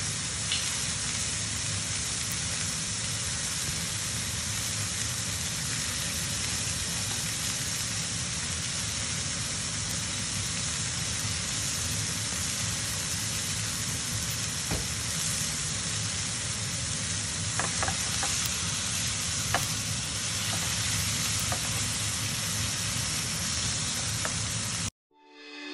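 Rib-eye steak sizzling steadily in foaming butter with garlic in a frying pan, while a spoon bastes it and clicks lightly against the pan a few times. The sizzle cuts off suddenly near the end.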